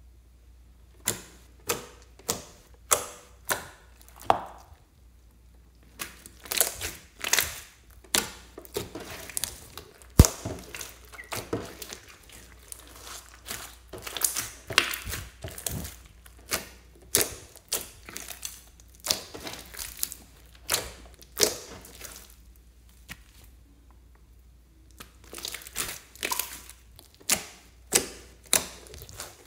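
Hands kneading, stretching and pressing sticky glitter slime with small beads in it, making quick sticky pops and clicks as air pockets break, in irregular runs with a couple of short quiet pauses.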